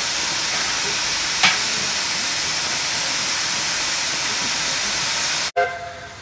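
Garratt steam locomotive blowing off steam, a loud steady hiss, with one sharp knock about a second and a half in. The hiss cuts off abruptly near the end, and a brief pitched sound follows over a much quieter background.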